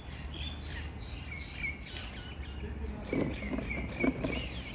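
Small birds chirping repeatedly in the background, with a few louder handling sounds about three seconds in.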